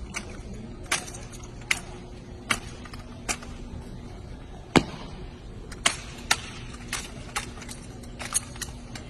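Sharp slaps and cracks of a wooden drill rifle being handled, spun and caught in a solo exhibition drill routine, about a dozen of them spaced under a second apart, the loudest about halfway through.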